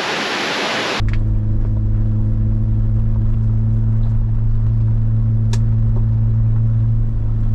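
A waterfall rushes for about the first second, then cuts suddenly to the steady low drone of a Jeep Wrangler driving, heard from inside the cabin. There is a single sharp click in the middle.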